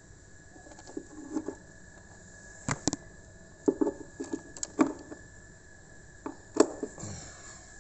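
Irregular clicks and knocks of a Speakon speaker-cable plug and its rubber cable being handled and coiled, the sharpest knocks near the middle and towards the end.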